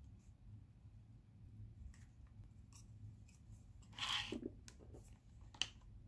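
Faint handling sounds of a camera being mounted on a small tabletop tripod: light clicks and rubbing, a louder short scrape about four seconds in as the tripod is set up, and a sharp click near the end.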